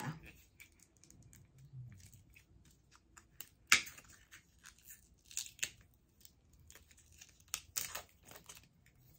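Hands working at a Funko Soda collectible can to open it: scattered small scrapes and sharp clicks, the loudest snap a little under four seconds in, with a few more clustered later.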